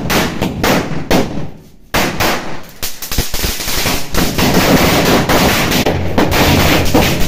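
Dozens of bijli bomb firecrackers going off in a hot kadhai (wok), set off one after another by the heat of the pan: a rapid string of sharp bangs and crackles. It slackens briefly about one and a half seconds in, then the bangs come thicker and almost continuous.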